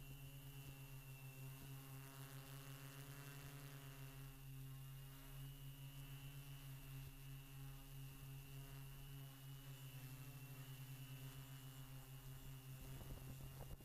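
Faint steady hum with a thin high whine above it, from a quadcopter drone's electric motors and propellers as the drone hovers.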